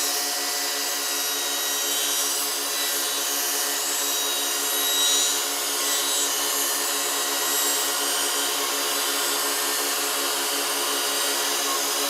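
Woodshop power machinery running steadily: a constant noise with a low hum that pulses evenly, about three times a second.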